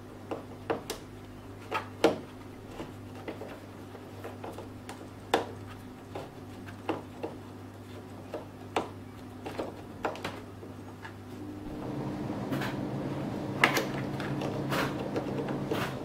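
Scattered clicks and knocks of hard plastic as a 12-volt power socket is pushed and twisted against a motorcycle fairing panel's mounting hole, which is too small for it to go through. A steady low hum runs underneath and grows louder about three-quarters of the way through.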